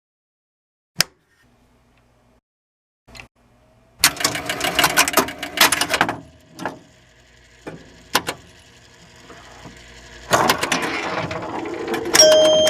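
Pinball machine mechanisms clicking and clattering: a single click, then a dense run of rattling clicks. Steady electronic beeps come in near the end.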